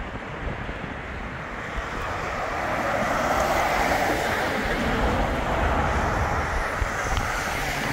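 Articulated lorry driving past on a dual carriageway, its tyre and engine noise swelling about three seconds in and easing off near the end, with traffic following. Wind rumbles on the microphone throughout.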